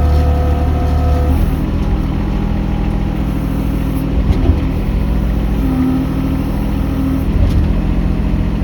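Mini excavator engine running steadily while digging, its note shifting about a second in and again a couple of times near the end.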